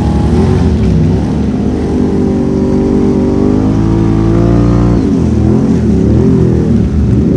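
Can-Am Renegade ATV engine under throttle. Its pitch climbs steadily for a few seconds, drops sharply about five seconds in, then rises and falls unevenly with the throttle.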